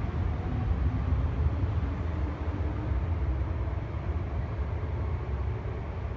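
MTR M-Train electric multiple unit running through an underground station: a steady low rumble with faint humming tones, slowly getting quieter towards the end.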